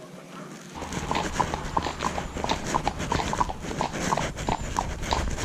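Horse's hooves clip-clopping at a walk on a hard lane, a regular beat of about four strikes a second, starting about a second in.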